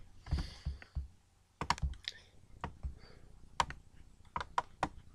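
Irregular clicks and taps of a computer keyboard and mouse, with a few dull knocks in the first second.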